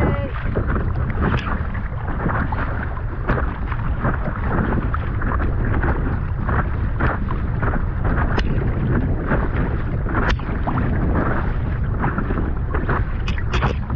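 Wind buffeting the microphone in a heavy, steady rumble, with choppy lake water lapping and splashing close by in irregular small slaps.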